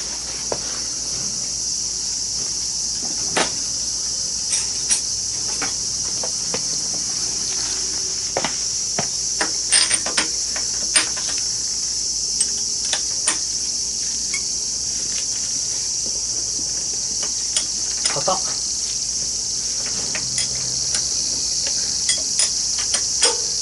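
A steady, high-pitched insect chorus, with scattered sharp metallic clicks and taps from hand tools working at the motorcycle's spark plug.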